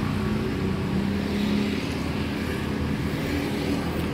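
Steady low rumble of road traffic, with a vehicle engine's hum running under it.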